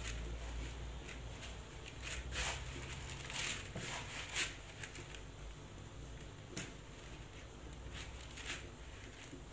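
Fresh, oiled rechta noodles being loosened and separated by hand in a wooden bowl before steaming: a series of soft rustling strokes, the most and loudest a few seconds in, with a couple more later.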